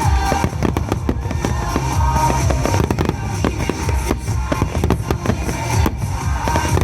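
A dense fireworks finale barrage: shells bursting in rapid, overlapping booms and crackles without a break.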